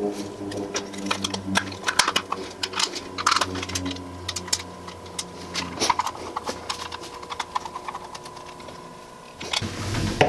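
Irregular small plastic and metal clicks and taps of hands taking apart and wiring a 220-volt plug, with a screwdriver working its terminal screws.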